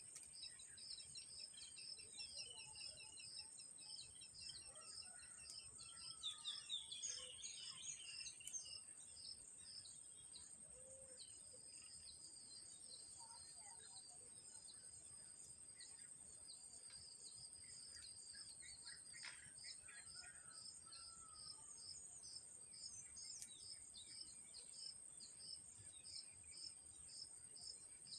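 Faint outdoor ambience of insects and birds: a steady high insect drone with a rhythmic chirping of about two or three pulses a second throughout. Birds call in short varied phrases, mostly in the first third and again about two-thirds of the way in.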